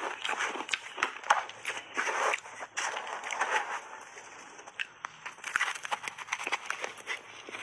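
Close-miked chewing of a mouthful of shaved ice with mixed berries: a dense run of crunches and crackles. It eases off about four seconds in and picks up again with the next big bite.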